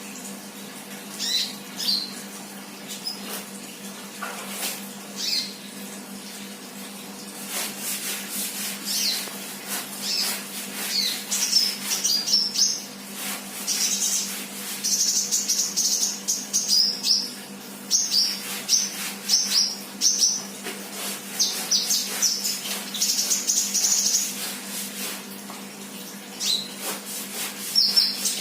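Sunbird chirping: short, high-pitched twitters, sparse at first and then in quick, dense runs, mixed with sharp clicks. A faint steady hum lies underneath.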